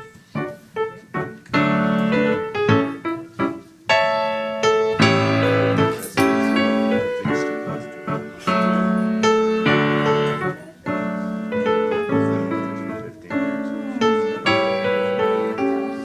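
Piano music: a run of struck chords and melody notes, each sounding and then dying away.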